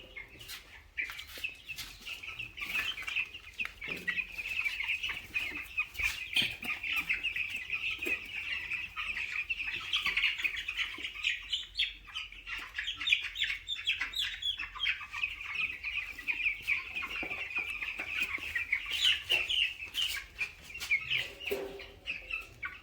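A flock of 14-day-old broiler chicks keeps up a continuous chorus of high-pitched peeping, with scattered light knocks.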